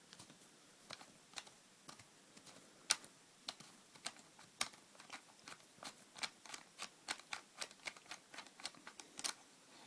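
Light, irregular clicks and taps of an airsoft gun's parts as a front part is twisted counterclockwise and unscrewed, about two a second, coming closer together in the second half.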